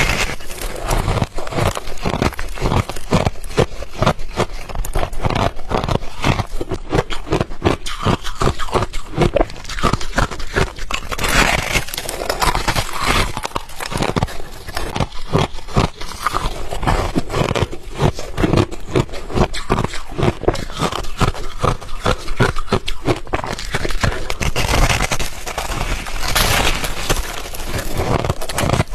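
Ice being bitten and chewed close to the microphone: a continuous run of loud, sharp crunches and cracks with no pauses.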